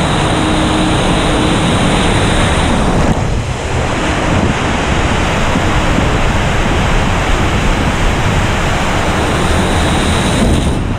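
Rushing water and wind on the microphone as a raft runs down a water-park slide: a loud, steady rush of water and spray, dipping briefly about three seconds in.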